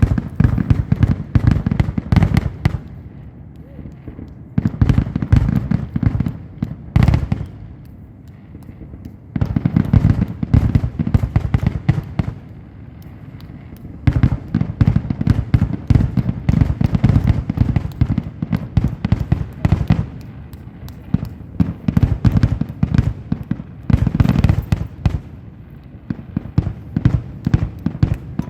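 Fireworks going off: dense, rapid crackling and popping that comes in waves, with short lulls about 4, 8 and 13 seconds in.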